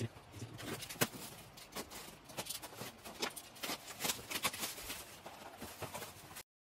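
Irregular light clicks and taps of small hard objects being handled and set down, with one sharper knock about a second in, cutting off abruptly near the end.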